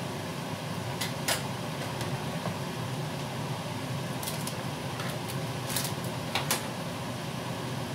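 A kitchen knife tapping sharply a few times on a wooden cutting board as a red pepper is sliced, over a steady low mechanical hum.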